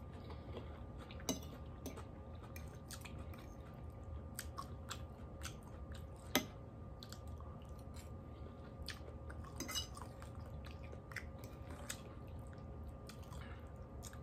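A person chewing steamed cauliflower and collard greens close to the microphone, with soft crunches and wet clicks. Two sharper clicks stand out, about a second in and about six seconds in.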